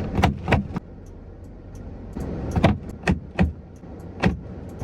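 A series of sharp knocks and thuds, about seven in two groups, inside the cab of a moving GAZelle Next light truck, over the steady drone of engine and road.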